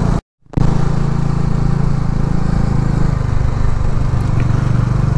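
Bajaj Dominar motorcycle's single-cylinder engine running at a steady pitch while riding. It cuts out for a moment just after the start.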